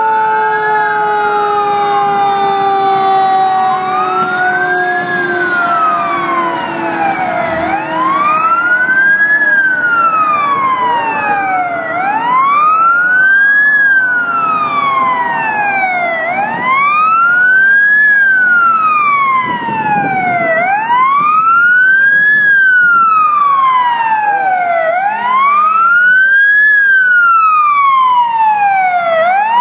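Emergency vehicle sirens from fire trucks and an ambulance passing by. A wail siren rises and falls about every four seconds, while in the first several seconds a second siren's long tone slowly falls away.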